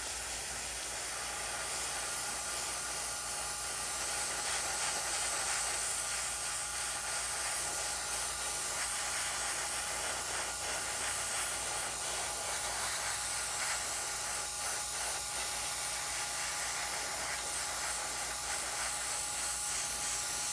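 Gravity-feed airbrush spraying paint: a steady, even hiss of air and paint mist that stops abruptly.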